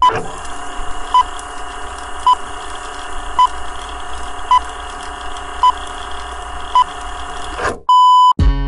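Film-leader countdown sound effect: a short high beep on each count, a little over one a second, over a steady hum and hiss, ending in a louder, longer beep. Acoustic guitar music starts right after it.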